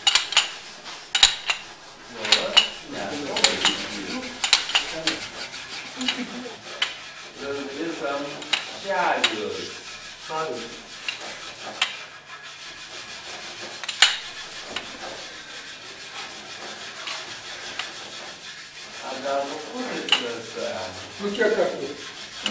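A hand tool with a wooden handle and a metal rod worked in a bucket, scraping, rubbing and knocking. Sharp clicks come in the first few seconds, and squeaky sliding tones come around the middle and again near the end.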